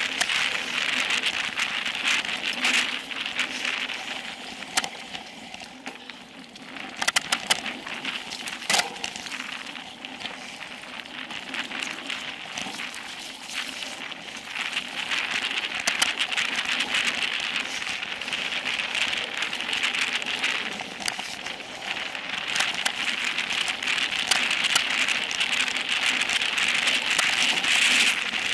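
Specialized Epic Pro mountain bike rolling fast down a dirt singletrack: a steady hiss of tyres on dirt and grit, with scattered sharp clicks and rattles as the bike goes over bumps and small stones. The rolling noise grows louder near the end as the bike speeds up.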